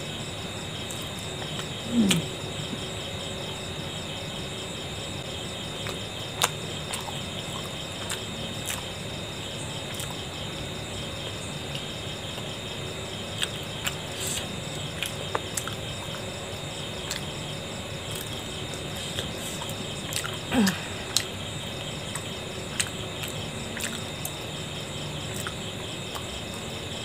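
Steady chirping of crickets, with scattered soft clicks and smacks of chewing. Two louder short mouth sounds with a falling pitch come about two seconds in and about twenty seconds in.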